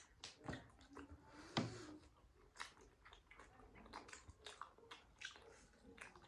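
Faint chewing of steamed momo dumplings: scattered soft wet smacks and small mouth clicks, the loudest about a second and a half in.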